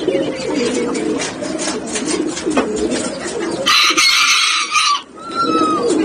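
Several ringneck doves cooing together in low, overlapping, wavering calls. About four seconds in, a loud hissing rustle cuts across them for about a second, followed by a short, high, falling whistled note.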